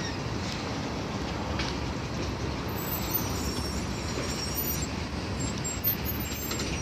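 Norfolk Southern freight train's tank cars rolling past: a steady rumble of steel wheels on the rails.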